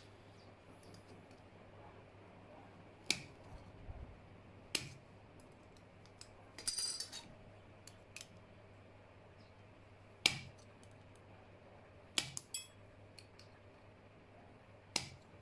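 Hand-held compound metal snips (tin snips) cutting thin mild steel plate: sharp single snips a second or more apart, about six in all, with a short metallic clinking rattle about halfway through.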